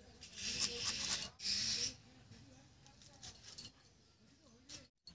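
Cauliflower leaves being sliced on a bonti, the curved upright kitchen blade: two crisp, rustling cuts within the first two seconds, then quieter handling of the leaves with a few light ticks.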